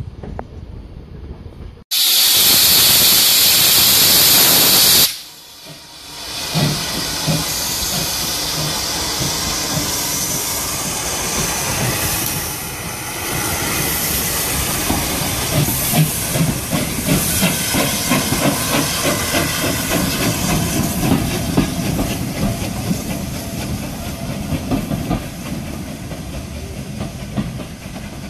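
Steam tank locomotive letting off a sudden, very loud rush of steam for about three seconds, then hissing continuously with a run of quick chuffs and beats as it works.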